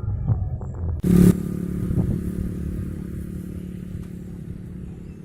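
A motor engine running steadily, with a few clicks early on and a short, loud clattering burst about a second in.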